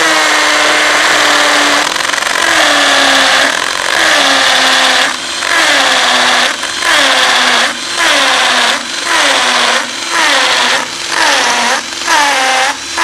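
Xiaomi Mijia Tonfon cordless hammer drill in hammer mode, boring an 8 mm bit into a masonry wall. Its motor whine sags in pitch as it bogs under load, and from about five seconds in it stops and restarts in short bursts about once a second. The user finds the hammer action slow and the power weak.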